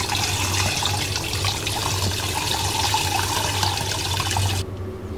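Kitchen tap water running in a spray over raw chicken pieces as hands rinse and rub them in a sink, cutting off abruptly near the end.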